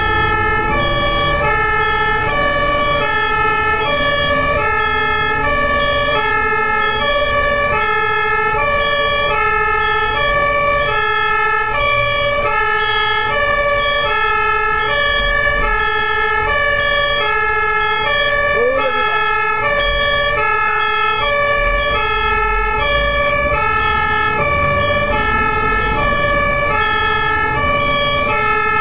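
Emergency vehicle's two-tone siren sounding steadily, a high and a low note alternating evenly, over the low rumble of the vehicle driving.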